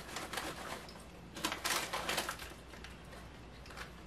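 Crinkling of a plastic Sabritas snack-mix bag being handled, with a burst of rustling about a second and a half in.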